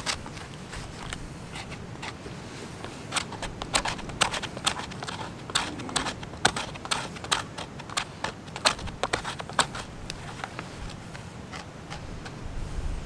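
A knife blade scraping the papery outer bark of a birch log in short, irregular strokes, shaving off fine birch-bark dust as fire tinder.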